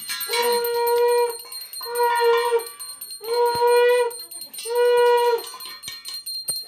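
Conch shell (shankha) blown in four separate long notes, each about a second long, starting abruptly and sagging slightly in pitch as it ends.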